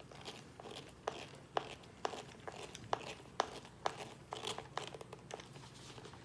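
Small, sharp clicks and light ticking, roughly two a second and irregular, as a wheel nut on an RC truck is tightened by hand with a 7mm nut driver.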